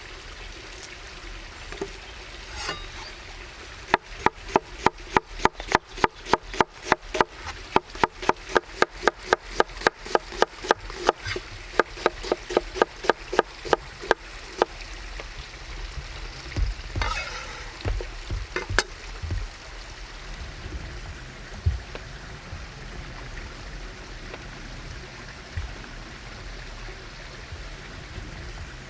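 Knife chopping on a wooden cutting board: a quick, even run of about four strokes a second for roughly ten seconds, then a few scattered knocks.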